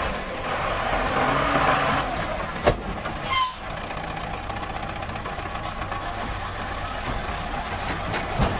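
Light dump truck's diesel engine running while its raised tipper bed empties the last of a load of sand and then lowers. The rushing is loudest in the first two seconds. There is a sharp knock about two and a half seconds in, and a brief squeal just after.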